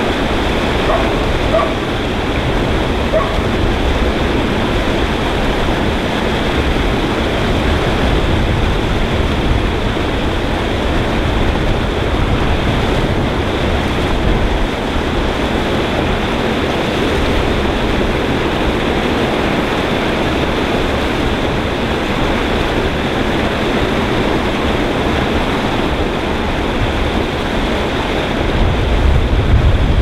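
Water pouring over a curved weir and churning in the stone channel below, a steady loud rush.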